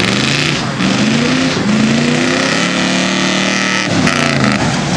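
Chevrolet square-body pickup's engine accelerating hard, its pitch rising in two climbs and then holding steady, with a brief break about four seconds in.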